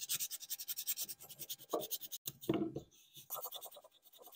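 A small folded strip of sandpaper rubbed by hand on the wooden stock of a vintage sliding T-bevel, making quick back-and-forth rasping strokes. The strokes pause briefly about three seconds in, then go on more softly.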